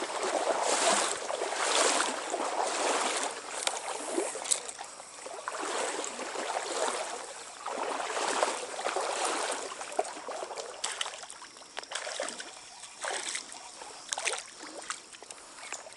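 Stream water sloshing and splashing in irregular swells every second or two, with a few sharp splashy clicks.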